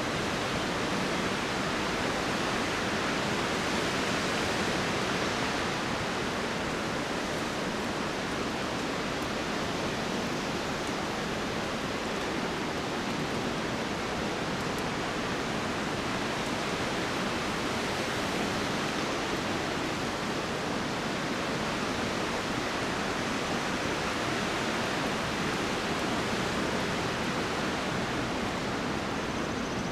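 Wind rushing steadily through tall Monterey pines, an even rush of noise with no distinct knocks from the branches standing out.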